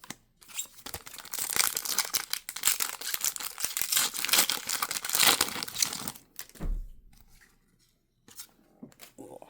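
Pokémon booster pack's foil wrapper being torn open and crinkled for about six seconds, followed by a short soft thump.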